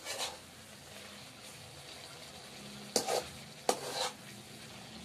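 Metal slotted spoon stirring cauliflower frying in masala in a metal pot: a low steady sizzle, with sharp scrapes and knocks of the spoon on the pot at the start and three more about three to four seconds in.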